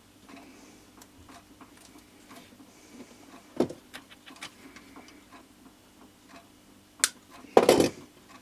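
Quiet bench handling sounds while labelling wires: faint light ticking and small clicks over a steady low hum, then a sharp click and a short, loud scraping noise near the end.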